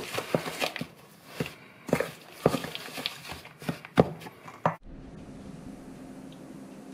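Wooden spoon stirring and scraping a dry, crumbly chickpea-flour, sugar and nut mixture in a stainless steel bowl: irregular scrapes and knocks against the metal. About five seconds in it stops suddenly, leaving a steady low hum.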